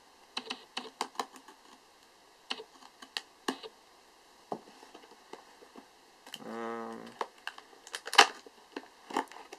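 A cardboard lens box being handled while its tape seal is slit with a pen tip: a string of small scratches, taps and clicks, with one sharp snap about eight seconds in. About six and a half seconds in, the filming camera's 18-55mm SAM kit-lens autofocus motor buzzes steadily for about a second.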